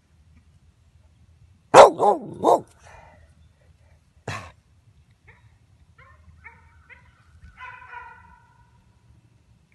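Pit bull terrier barking: a quick run of three loud barks about two seconds in, then one more bark a couple of seconds later.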